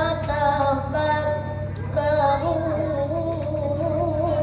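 A child's voice reciting the Quran in melodic tilawah style, holding a long drawn-out vowel with wavering, ornamented turns in pitch.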